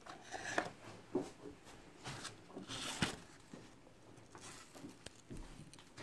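Light taps, scrapes and rustles of an old cardboard box and a round paper lid being handled and set down on a wooden table.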